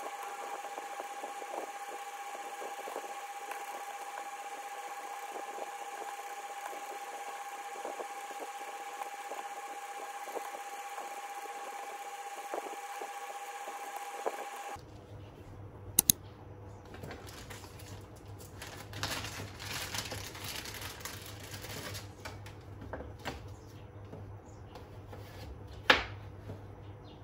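Typing on a Logitech K380 wireless keyboard's round keys, a dense patter of light key clicks over a steady tone. About halfway it gives way to a knife cutting on a plastic cutting board, with a few sharp knocks over a low hum.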